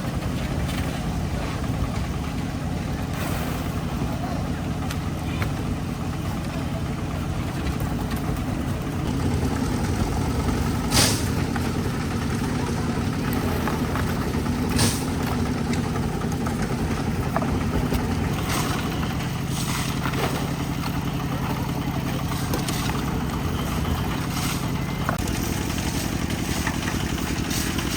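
Concrete mixer's engine running steadily, with a few sharp knocks or clanks over it, the loudest about eleven seconds in.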